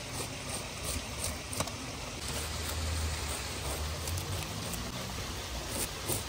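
Knife scraping the scales off a carp on a board: a continuous, crackly scraping with many small clicks.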